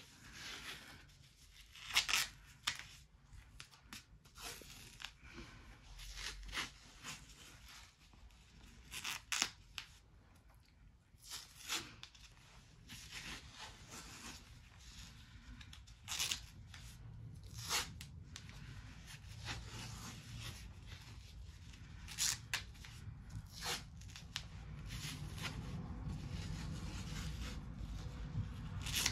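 White athletic tape being pulled off the roll and torn by hand into strips: short rasping rips come again and again at irregular intervals.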